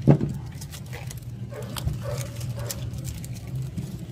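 An animal gives one sharp, short yelp that falls in pitch just after the start, then makes a few faint whines. Scattered light clicks sound over a steady low hum.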